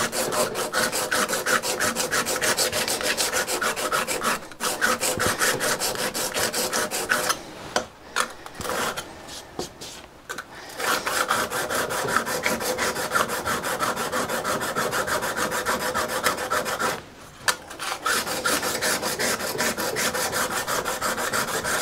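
Steel card scraper being rubbed back and forth on a sharpening stone in quick, even strokes with a faint metallic ring, honing its edge. The strokes come in bouts broken by a few short pauses, around four, eight to ten and seventeen seconds in.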